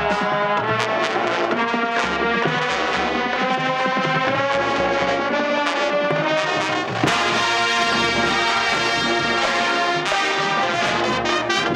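Marching band playing: brass sustaining chords over drum hits from the percussion line. About seven seconds in the brass gets brighter and fuller.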